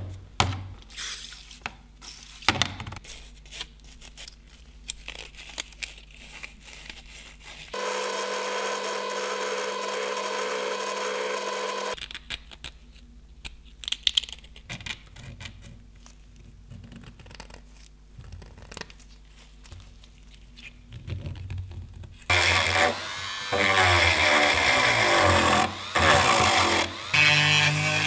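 Clicks and taps of small metal parts being handled, then a power tool running in several bursts with short stops near the end, cleaning corrosion and rust off the flashlight's bottom cap and spring.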